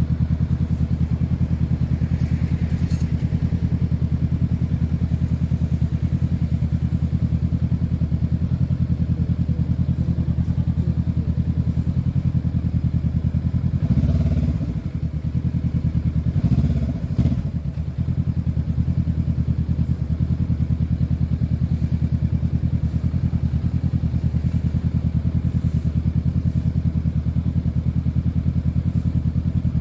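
Honda CB500F's parallel-twin engine running steadily through its aftermarket exhaust, with brief changes in engine note around 14 seconds and again around 17 seconds.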